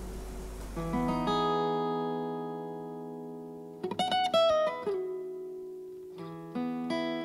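Background music: guitar chords and picked notes struck a few times and left to ring and fade.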